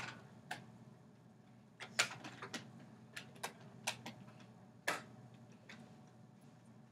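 Scattered sharp clicks and taps, about a dozen at uneven intervals, the loudest about two seconds and five seconds in, over a low steady room hum.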